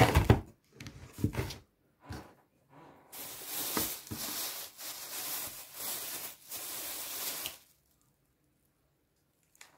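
A few knocks and clatter on the counter, then several seconds of crinkling plastic as a clear plastic bag is handled, cutting off near the end.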